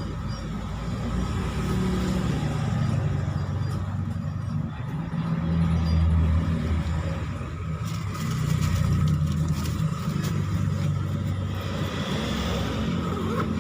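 A motor vehicle's engine running steadily, swelling louder and easing off a few times.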